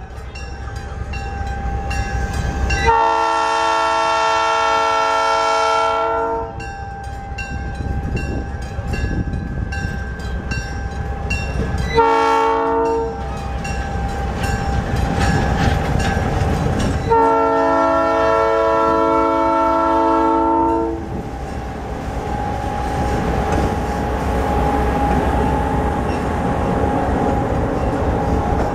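Southern Pacific diesel locomotive sounding its multi-chime air horn as it pulls past: a long blast about three seconds in, a short one around twelve seconds, and another long one about seventeen seconds in, over the steady rumble of its diesel engine. A bell rings steadily through the first half, and after the last blast the passenger cars roll by.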